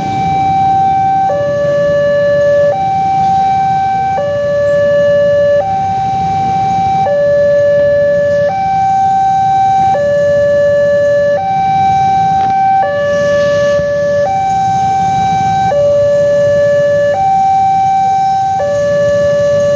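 Railway level-crossing warning siren sounding a steady two-tone hi-lo alarm, switching between a higher and a lower tone about every second and a half. It is the crossing's new replacement siren, fitted after the old one broke.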